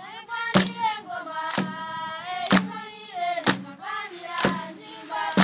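A group of schoolchildren singing in harmony, marked by a sharp body-percussion beat about once a second.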